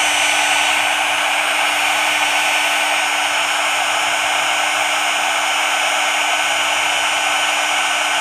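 Electric heat gun blowing steadily with a constant hum, shrinking heat-shrink tubing over the new wire connectors. It switches on and off abruptly.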